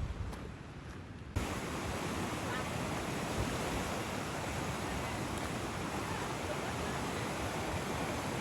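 Waterfall rushing in a steady, even roar of water that comes in suddenly about a second and a half in, after a quieter stretch with a few faint knocks.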